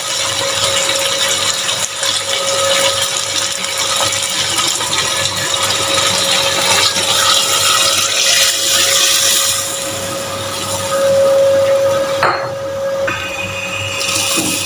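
Lamb stock being poured from a bowl into a steel pot of fried masala and lamb trotters, a steady hiss that eases and drops off near the end, over a steady hum.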